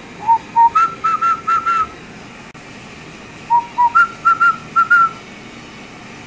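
Someone whistling the same short tune twice, each time two lower notes followed by five quick higher notes.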